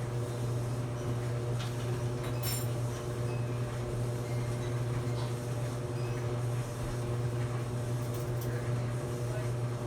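Maytag clothes dryer running, a steady low motor-and-drum hum with a couple of faint ticks.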